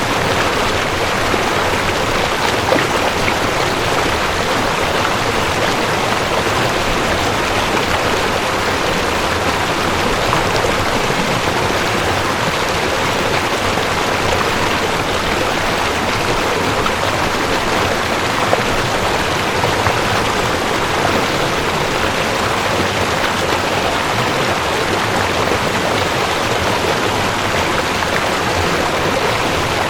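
Mountain stream rushing over rocks: a steady, unbroken wash of flowing water.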